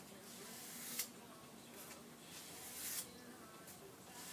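Opinel No. 8 knife blade stroked along sandpaper on a wooden block in a light touch-up of the edge, one stroke about every two seconds. Each stroke is a faint hiss that grows and ends in a sharp scrape.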